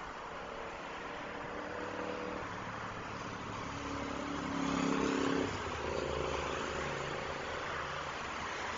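City highway traffic: steady tyre noise with the engine hum of passing cars. One vehicle grows louder to a peak about five seconds in, then drops away suddenly.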